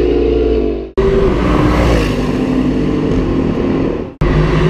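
High-performance car engines running hard on a race straight, heard in short edited clips. The sound fades and cuts abruptly about a second in and again near the end. In the middle clip the engine note drops in pitch about two seconds in.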